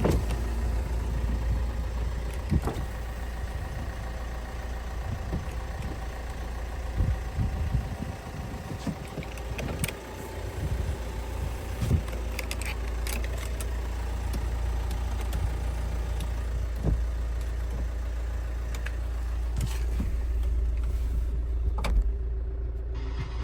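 Kia Sportage engine idling, a steady low rumble, with scattered sharp clicks and knocks over it.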